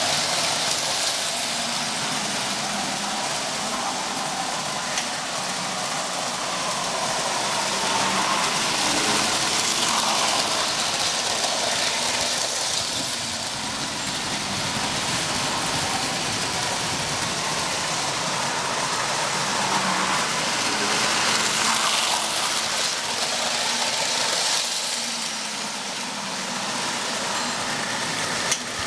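O-gauge toy trains running on tinplate track: a Lionel diesel and a Marx steam locomotive pulling their cars. The wheels rumble on the rails and the motors whir, growing louder and softer as the trains come close and move away.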